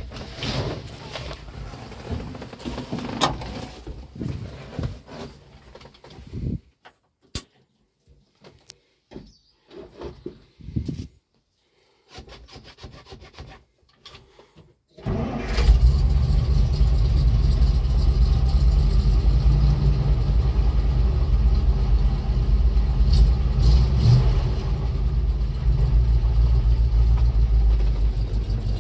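Knocks and scrapes of someone settling into the truck cab, then a quiet stretch with a few clicks. About halfway, the 1981 GAZ-53's V8 petrol engine starts from cold and keeps running steadily and loudly.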